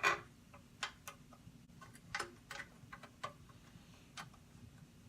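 Light, irregular metal clicks and taps, about seven in all, as a bolt with a lock washer and flat washer is fitted and hand-tightened to fix a bench grinder's shield arm to its wheel guard.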